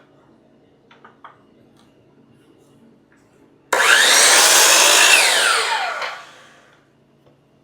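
Table saw motor switched on with a sudden start about halfway through, running loudly for a second or so, then switched off and winding down with a falling whine that fades out. A couple of light clicks come before it.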